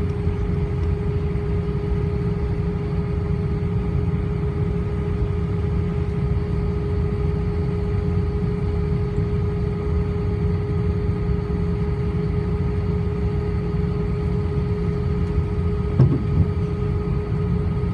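Airbus A319 taxiing, heard inside the passenger cabin: a steady low rumble under an even engine hum with a held tone. One brief thump comes near the end.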